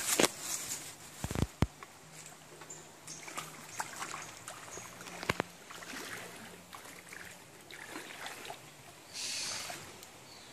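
Footsteps wading through ankle-deep stream water, with small splashes and scattered clicks. There are two sharp knocks about a second and a half in, and a louder half-second splash near the end.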